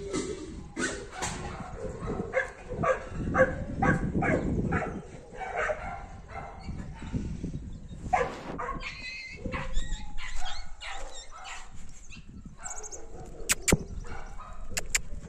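Two young dogs play-fighting, with a string of short yips and barks. Two sharp clicks near the end.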